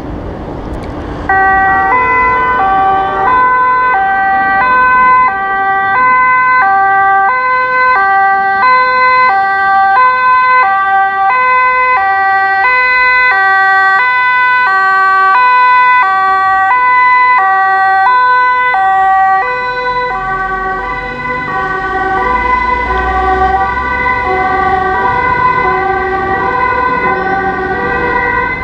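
German fire brigade two-tone siren (Martinshorn), switching back and forth between a high and a low note, starting suddenly just over a second in as the emergency vehicles approach. After about 20 seconds the two tones smear and overlap while the low rumble of a truck's diesel engine passes.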